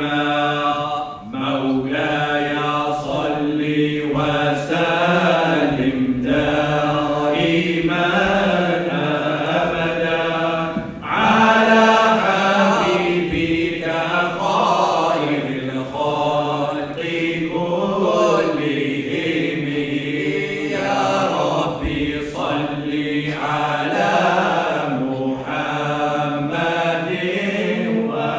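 A group of men chanting a devotional nasheed in unison, singing long, bending melodic phrases over steady held low notes.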